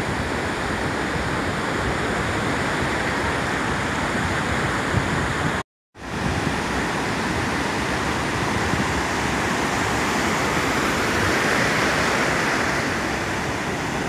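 Sea surf: rows of small waves breaking and washing up a sandy beach, a steady rushing noise, broken by a moment of silence about six seconds in.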